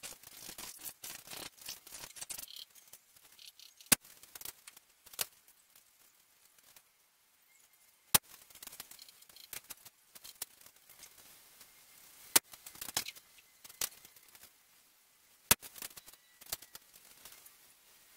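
Air rifle pellet shots at a paper target: four sharp cracks about four seconds apart, with fainter clicks between them and some rustling near the start.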